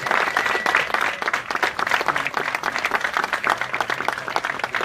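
Crowd applauding: many hands clapping steadily throughout.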